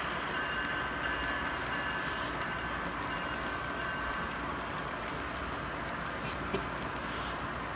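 HO-scale model train cars rolling along the layout track, a steady rumble of small wheels on rail, with a single sharp click about six and a half seconds in.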